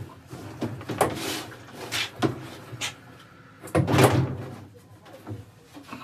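Knocks and scrapes of a top-loading washing machine's perforated metal inner drum being worked loose and lifted up out of its plastic outer tub, a handful of separate clunks with the loudest about four seconds in.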